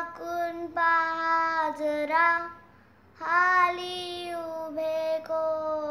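A young girl singing alone, without accompaniment, in long held notes. She breaks off briefly about two and a half seconds in, then carries on.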